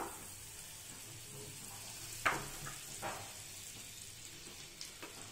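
Butter melting and sizzling faintly in a hot nonstick pan, a soft steady hiss, with a sharp click a little over two seconds in and a few lighter clicks after it.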